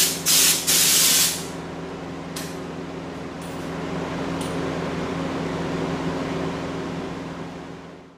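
Air-powered schutz gun spraying underseal in short hissing bursts, about two a second, which stop about a second and a half in. A steady low machine hum with a few faint clicks carries on after them.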